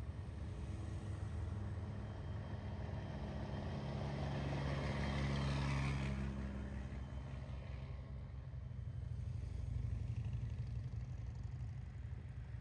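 Mack fire engine's engine running as it drives slowly past, growing louder to its loudest about six seconds in, then fading. After that, a steadier, lower rumble of engines from the procession's vehicles.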